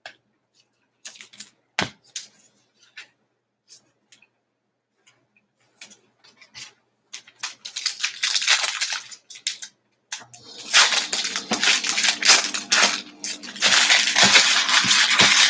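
Trading cards handled with scattered light clicks and taps. From about seven seconds in, a foil trading-card pack wrapper crinkles and tears as it is opened, loudest in the last five seconds.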